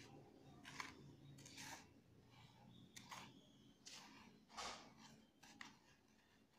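Faint, scratchy rustles of dry homemade breadcrumbs as a hand presses and rakes them over a plate, breading a batter-coated vegetable chop. The rustles come in short bursts at uneven intervals.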